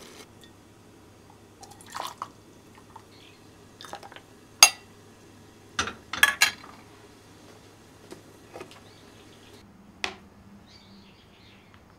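A few short clicks and knocks of glassware with small drips of liquid, as hot water is handled in glass; the sharpest click comes about halfway through, followed by a quick run of three knocks.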